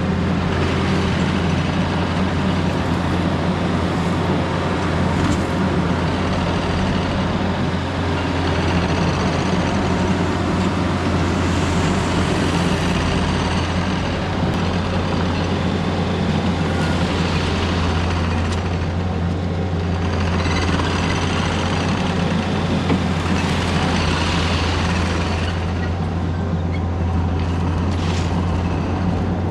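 Diesel engine of a Takeuchi earthmoving machine running steadily under work, with a constant low hum and the noise of the machine rising and falling as it moves and digs rock backfill.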